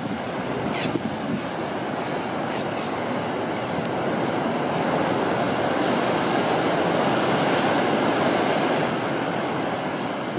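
Heavy ocean surf breaking around limestone rock stacks: a continuous rushing roar of waves that swells to its loudest about seven or eight seconds in, then eases slightly.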